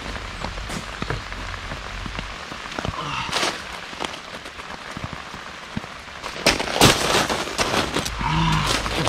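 Heavy rain falling steadily on gravel and camping gear. Through it come sharp knocks and clatter as pieces of firewood and gear are snatched up, the loudest a little past halfway.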